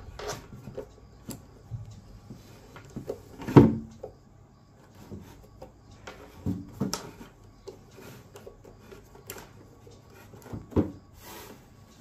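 Scattered plastic clicks, knocks and rubbing as a plastic RO water-purifier tap is twisted and worked loose from the water tank, with the loudest knock about three and a half seconds in.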